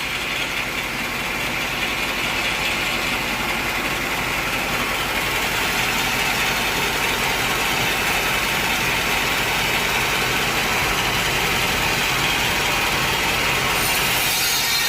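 Sawmill machinery running steadily, a loud, even mechanical noise that swells slightly, with a brighter hiss joining near the end.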